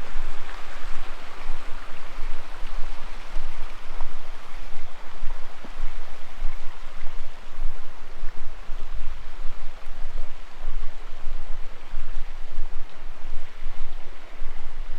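Rushing creek water, a steady noisy rush, with a low fluctuating rumble on the microphone underneath.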